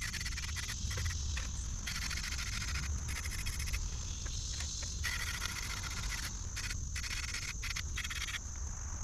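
Rust-Oleum flat spray paint can hissing in several short bursts of about a second each, over a steady high chirring of crickets.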